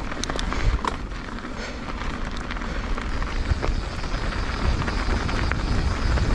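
Yeti SB150 mountain bike riding along a dirt singletrack, heard through the bike-mounted camera's microphone: a steady rumble of wind on the microphone and tyre noise, with a few short clicks and rattles from the bike, growing a little louder near the end.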